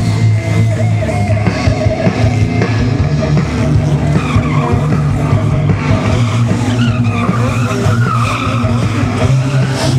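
Sport motorcycle engine revving while the bike wheelies and then drifts in tight circles. From about four seconds in, a wavering tyre squeal comes in. Rock music plays along with it.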